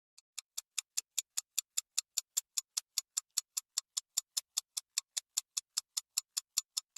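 Clock ticking fast and very evenly, about five crisp ticks a second, fading in over the first second.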